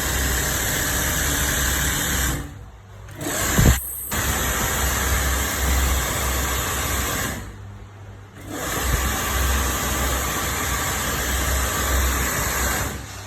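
Industrial three-head hair-weft sewing machine running with a steady whir and low throb, stopping briefly twice and starting up again, with a short sharp knock just before the first restart. Freshly serviced, it runs smooth and light.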